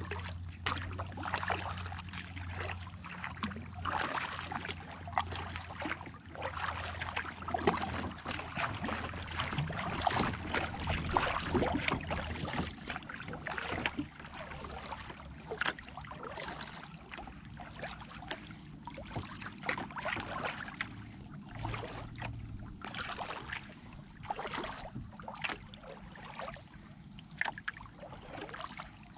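Kayak paddle dipping into calm river water, splashing and dripping stroke after stroke in an uneven rhythm.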